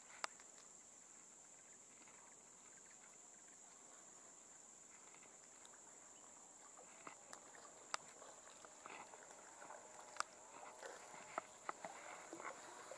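Faint steady high-pitched insect buzz, with rustling and a few sharp clicks in the second half as a cast net and its rope are handled and thrown.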